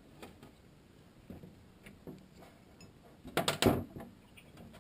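Metal parts of a riding-mower transaxle being handled: a few light clicks, then a short burst of metallic clattering and knocking about three and a half seconds in.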